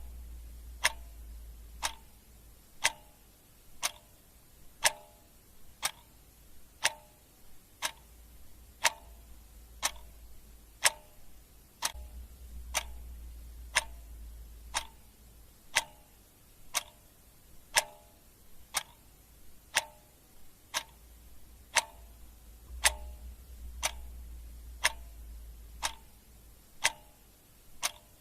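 Clock ticking steadily, one sharp tick about every second. A faint low hum swells and fades beneath the ticks a few times.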